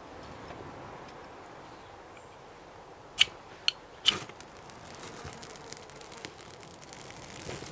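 A fire steel struck three times in quick succession, about half a second apart, a short sharp scrape each time as it throws sparks into dry grass tinder. The tinder then catches and burns with faint scattered crackles that build toward the end.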